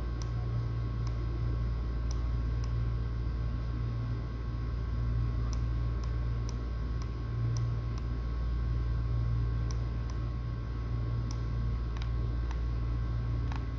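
Light, sharp clicks at irregular intervals, some in quick pairs, over a steady low hum.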